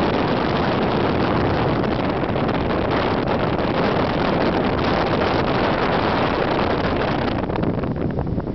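Strong wind buffeting the camera's microphone: a loud, steady rumbling rush that becomes choppier and gusty near the end.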